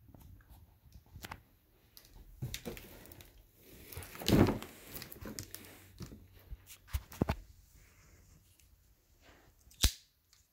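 Cardboard box being handled and turned over: scraping, rustling and light knocks, with one louder thump about four seconds in and a sharp click near the end.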